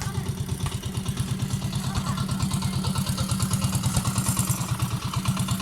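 Small engine running steadily with an even, rapid chugging beat.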